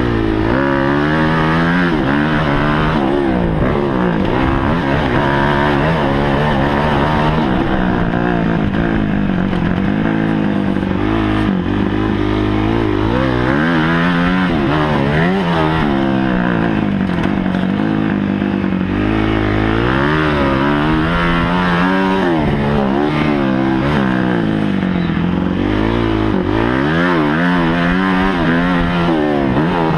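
Kawasaki KX250F motocross bike's four-stroke single-cylinder engine revving up and falling back again and again as the throttle is opened and shut while riding, with wind rushing over the microphone.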